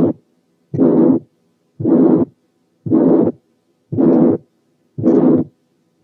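Recorded heart sounds of severe pulmonary stenosis: with each beat, about one a second, a long ejection systolic murmur runs up to the second heart sound, whose pulmonary component is weak and hard to hear. A faint steady hum lies between the beats.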